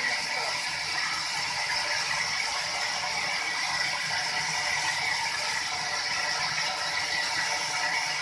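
Sawmill machinery running steadily: a continuous mechanical rattle with a high, steady whine over it.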